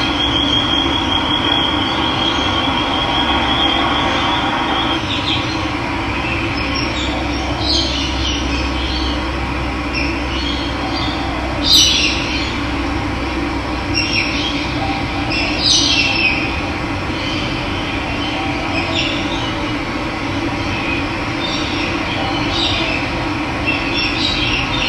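Running water with a steady rush, with birds calling in short chirps scattered through it. A high, even trill holds for the first few seconds.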